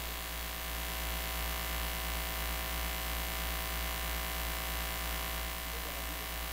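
Steady electrical mains hum and light hiss from an idle PA sound system, with no music or voice over it.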